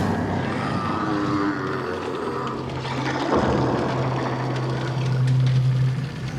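Horror sound-design ambience: a dense, loud, engine-like rumbling drone. A few pitch glides come early, and a steady low hum comes in about two seconds in and fades shortly before the end.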